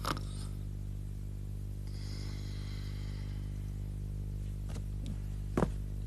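Steady low electrical hum. A short knock comes right at the start, and a few sharp knocks come near the end, the loudest about five and a half seconds in.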